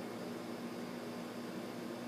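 Steady background hiss with a constant low hum underneath: room tone.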